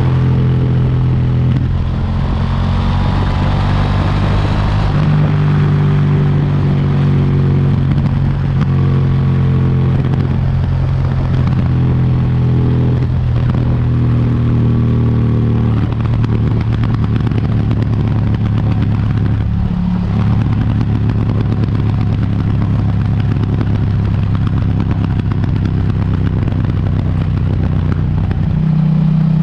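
KTM 790 Duke motorcycle's parallel-twin engine with its stock exhaust, running under way at fairly steady revs. The engine note steps up and down in pitch a few times.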